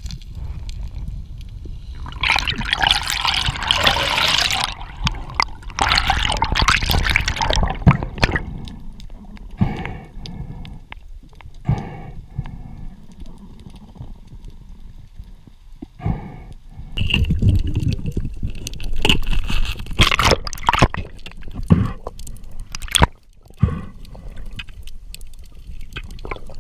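Muffled underwater sound picked up through a camera housing: bursts of bubbling and rushing water, with scattered knocks and clicks.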